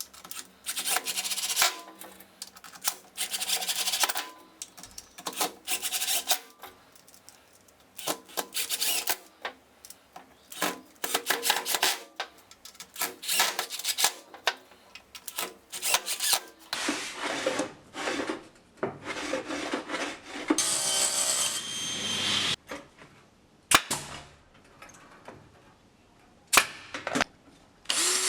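Repeated scratchy strokes of a hand tool rubbing on wood, roughly one a second, becoming more irregular about two-thirds of the way through, with a sharp click near the end.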